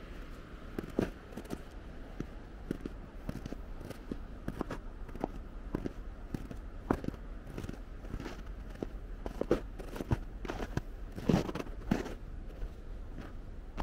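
Footsteps crunching on snow, as uneven short crunches over a low steady background rumble, with the loudest crunches a little before the end.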